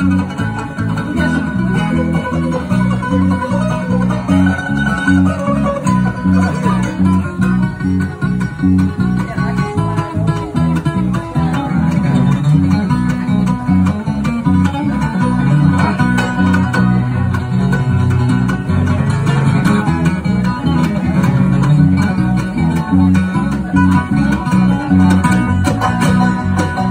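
Bluegrass band playing an instrumental tune, with banjo, mandolin, acoustic guitar and bass together.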